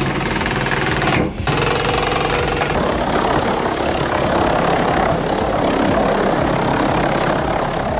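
An engine of heavy wood-processing machinery running steadily, with an abrupt change in the sound about a second in and a rougher, noisier running from about three seconds on.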